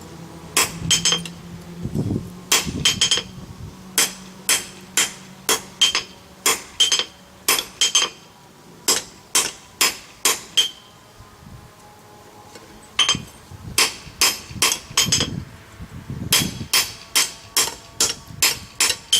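Forging hammer striking hot steel on an anvil, about two ringing blows a second with a short pause about two-thirds of the way through: setting a forge weld in the reins of a pair of tongs.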